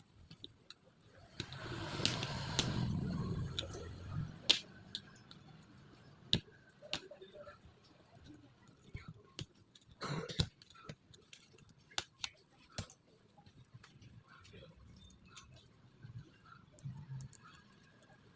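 ThinkPad X1 Yoga 3rd-generation laptop keyboard keys clicking, as scattered single sharp clicks at an uneven pace. About two seconds in there is a longer stretch of rustling handling noise.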